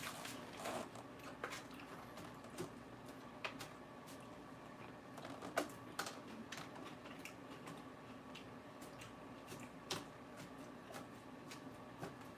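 Close-up chewing of crisp raw lettuce: irregular crunches and wet crackles, with the sharpest crunch near the middle.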